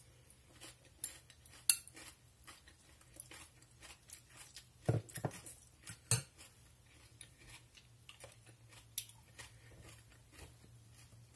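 Metal fork clinking and scraping against a small glass bowl of salad, in scattered light clicks with a few sharper knocks, the loudest about five and six seconds in.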